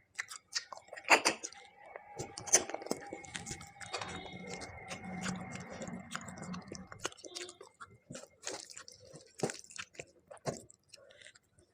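Close-up eating sounds of a person chewing, with repeated wet smacks and small crunches, most likely goat meat curry. Partway through, a steady hum runs for a few seconds behind the chewing.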